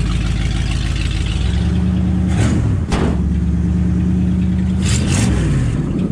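1969 AMC Rebel's 290 V8 idling steadily. The engine note dips briefly twice, and a few sharp knocks come around the middle and near the end.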